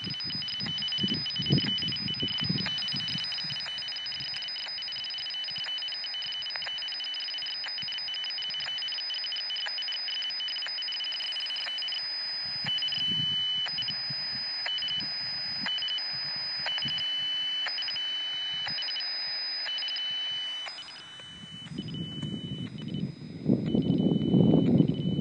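Radio scanner receiving an unidentified signal: two steady high tones over radio hiss, which from about halfway switch on and off in short, uneven pulses. Low rumbles sound early on, and a louder rumble comes in near the end.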